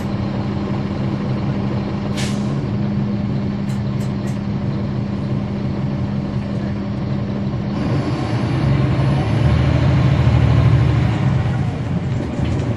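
Caterpillar C13 diesel engine of a NABI 40-SFW transit bus, heard from on board, running with a steady hum. There is a short hiss of air about two seconds in. Past the middle the engine grows louder and deeper for about three seconds, then settles back.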